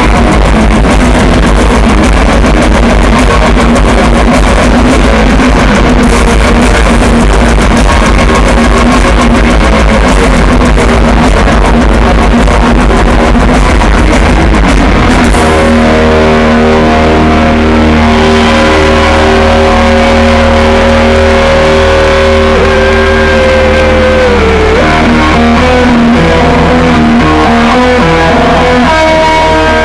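Loud live rock music with electric guitars, recorded near full scale from the concert crowd. About halfway through, the dense full-band playing gives way to long held guitar notes, one of them bent downward.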